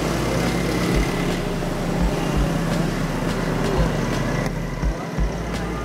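Street traffic: cars and motorcycles running past on a road, a steady rush with a few short low thumps.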